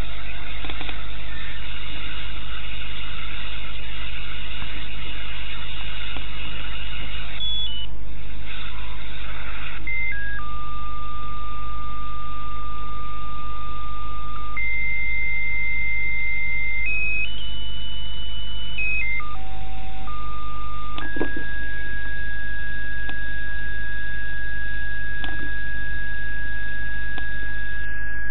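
Radio receiver audio: steady static hiss with a low hum, and a single whistle tone that jumps to a new pitch every few seconds as the tuning steps across carriers. A click comes a little past two-thirds of the way through, and the tone then holds one pitch to the end.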